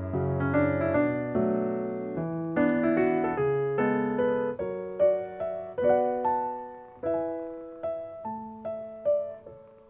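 Gentle background piano music: a melody of struck notes that each ring and fade, thinning to sparse single notes in the last few seconds.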